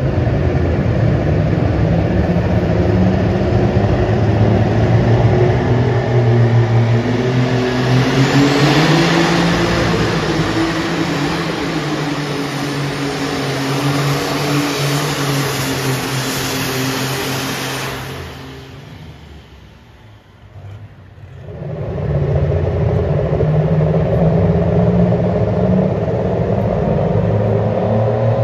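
Competition pulling tractor's engine running flat out as a John Deere tractor drags the weight-transfer sled, its pitch climbing about eight seconds in. About eighteen seconds in, the throttle is cut and the engine sound drops away. A few seconds later another tractor engine comes up and runs steadily.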